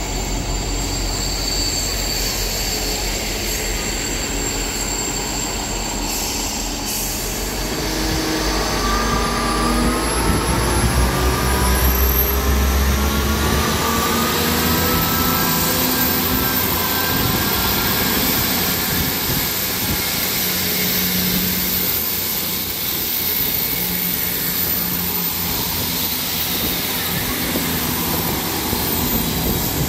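Class 159 diesel multiple unit at the platform, its underfloor Cummins diesel engines running steadily. From about eight seconds in, the engine note rises in pitch as the engines rev up, loudest a few seconds later.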